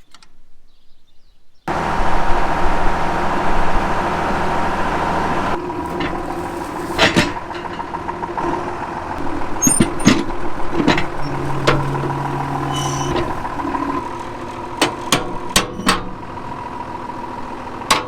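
A farm tractor's diesel engine running steadily. It comes in suddenly about two seconds in, with scattered knocks and rattles over it.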